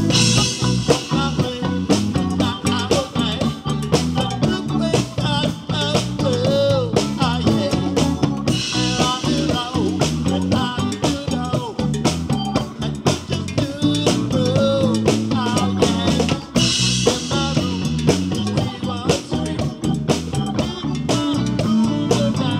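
Live band playing an instrumental reggae-style passage: electric guitar, keyboard, bass and drum kit with a steady beat, a melody line with bent notes, and cymbal crashes about every eight seconds.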